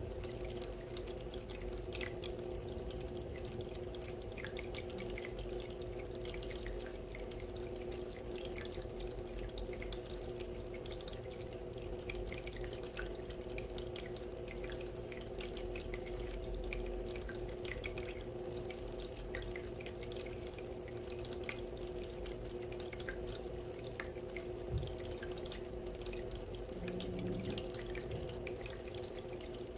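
Small decorative water fountain trickling and dripping steadily, a continuous patter of fine droplets over a low steady hum. One soft knock about three-quarters of the way through.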